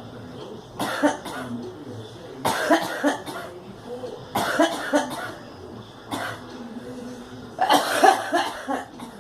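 A young woman coughing in repeated fits, five bouts about every two seconds, the last the loudest.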